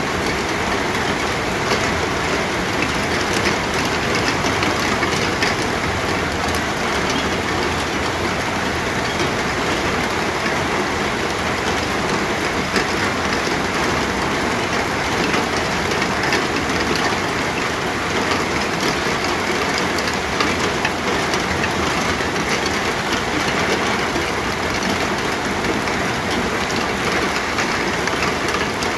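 Steady rain falling: a dense, even hiss of drops that does not change.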